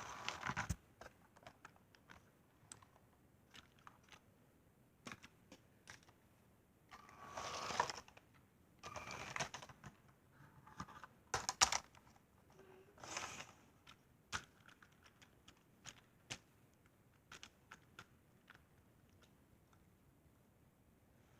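Lego plastic pieces and train models being handled: scattered faint clicks and small rattles, with a few short bursts of rustling and clattering.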